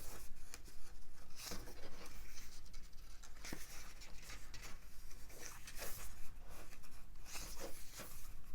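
Pages of a perfect-bound paper booklet being turned and handled: irregular papery rustling and brushing with a few soft taps.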